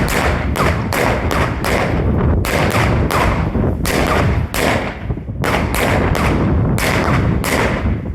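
Consumer firework cake with 20 mm tubes (Titanium Crosette Red) firing shot after shot: a rapid, uneven series of sharp bangs, about two to three a second with brief gaps, from launches and crossette stars splitting, over a continuous low rumble.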